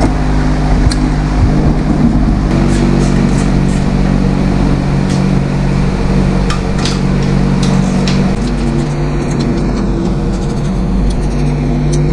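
Small gasoline engine running steadily, its pitch shifting slightly a couple of times, with light metallic tool clicks over it.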